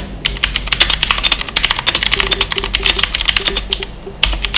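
Fast typing on a Vortex Poker II mechanical keyboard fitted with YMDK carbon side-print keycaps: a dense run of key clacks, with a short break about four seconds in.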